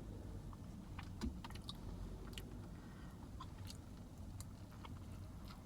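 A person chewing a mouthful of veggie burrito close to the microphone, with scattered small mouth clicks over a low steady hum.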